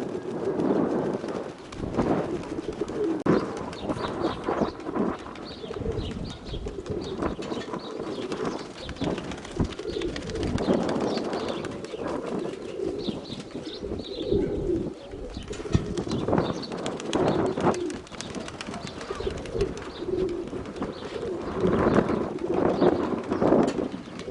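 Domestic pigeons cooing in repeated low, bubbling phrases, with gusts of wind rumbling on the microphone.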